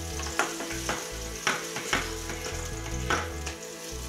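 Steady sizzling of food frying in a pan, with four sharp clicks spread through.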